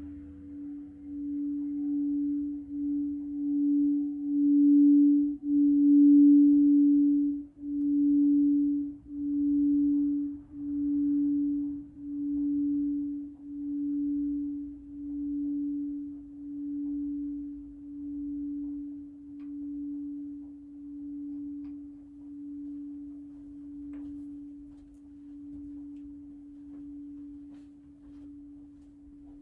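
Crystal singing bowl sounding one pure, steady note with a slow wavering pulse about every second and a half. It swells over the first six seconds or so, then slowly fades.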